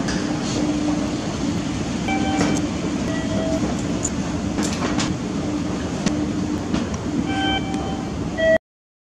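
Passenger train running, heard from inside the carriage: a steady rumble and hum with scattered clicks from the wheels on the rails. The sound cuts off suddenly near the end.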